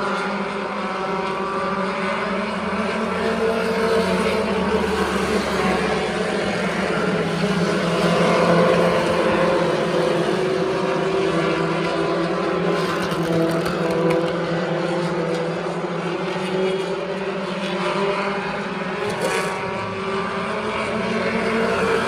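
A pack of pure stock race cars running laps on an oval track, several engines running together, their pitch rising and falling as the cars pass.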